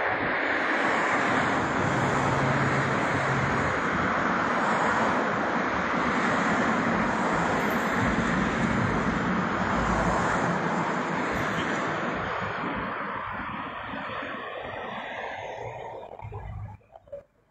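Steady rushing vehicle noise that fades over the last few seconds and drops off sharply near the end.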